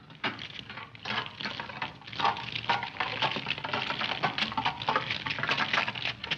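Dense, irregular crackling and clattering, many small clicks in quick succession, fairly loud throughout.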